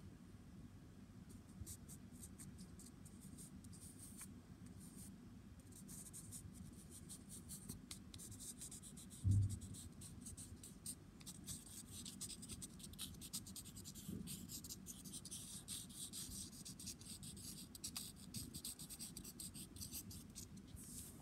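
Graphite pencil scratching on paper in quick back-and-forth shading strokes. It is faint and sparse at first and steadier from about six seconds in. One dull thump comes about nine seconds in.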